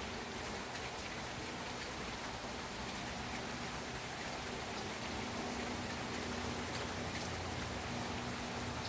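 Steady rain falling, with a few faint crackles and pops from a wood fire in a fireplace.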